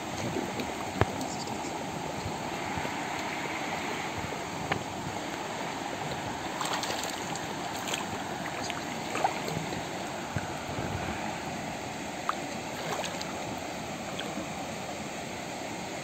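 Steady rush of a shallow river running over stones, with a few short sharp clicks scattered through.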